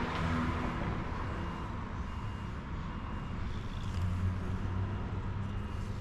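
A steady low engine hum of passing or idling motor traffic, with a faint high beep repeating a few times in the middle.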